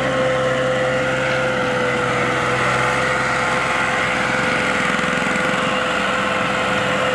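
Massey Ferguson 240 tractor's three-cylinder diesel engine running at a steady speed under load, pulling a heavily loaded trolley, with a steady humming tone.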